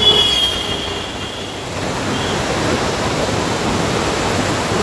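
Fast, muddy river water rushing and churning through a barrage: a loud, steady rush of water. Near the start a brief high squeal sounds over it and fades within about a second.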